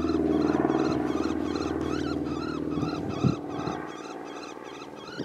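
Coyote howl sounded on a predator call to stop an approaching coyote: a rough, raspy call that fades after about three seconds, with short high chirps repeating throughout.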